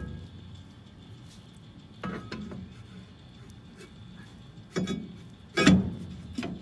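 Four separate metallic clanks and knocks from brake parts being handled during a drum brake job, the loudest near the end.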